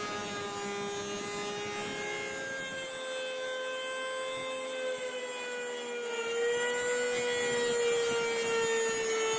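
Electric hand planer, mounted upside down as a small jointer, running with a steady high whine as wood is pushed across its cutter head. The pitch shifts slightly, and it gets louder about six seconds in.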